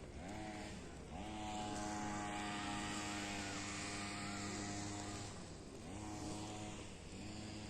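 A small motor repeatedly revving: each time its pitch glides up and then holds steady, once for about four seconds in the middle, with short dips between the runs.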